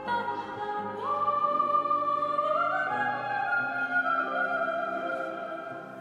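Operatic music playing: a singer holds long notes over an orchestra.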